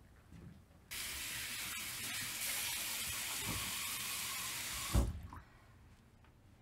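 Water running from a tap into a sink: it starts suddenly about a second in, runs steadily for about four seconds, and stops with a low thump.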